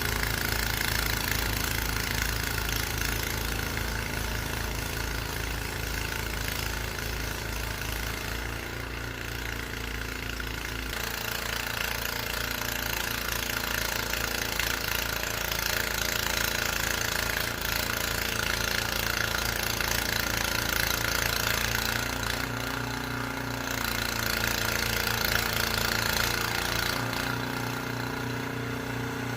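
New gas snowblower's engine (rated at 10 ft-lb gross torque) running steadily under load while clearing deep snow, with a steady hiss over the engine note.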